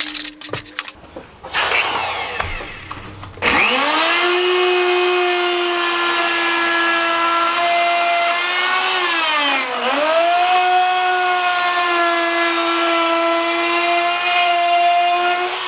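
Handheld router spinning up about three and a half seconds in and running with a loud, steady high whine while flush-trimming the edge of Formica laminate; its pitch dips once briefly about midway and then recovers. Before it starts there are a few sharp clicks and handling rattles.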